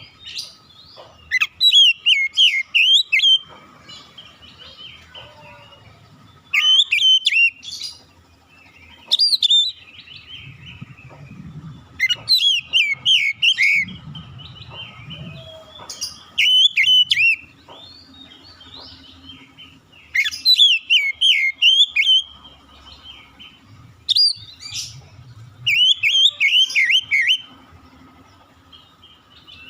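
Oriental magpie-robin (kacer) singing: loud phrases of quick, rising-and-falling whistled notes with some higher twitters, repeated every few seconds with short pauses between.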